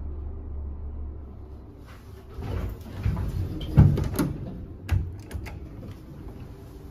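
Steady low hum inside the elevator car, then from about two seconds in, rustling and a string of knocks and bumps as the camera is handled against clothing and the car's wooden wall panel, the loudest thump near the middle.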